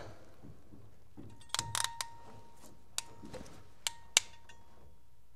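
Ratcheting wire crimper clicking as it closes on a spade connector: a quick run of clicks about a second and a half in, then single sharp clicks about three and four seconds in. It is re-crimping a connector that had pulled off the wire.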